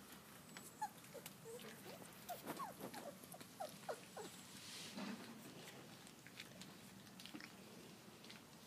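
Four-week-old Labrador puppies giving faint, short squeaks and whimpers, a quick run of them between about one and four seconds in, with soft clicks and lapping from the pups at the metal feeding dish.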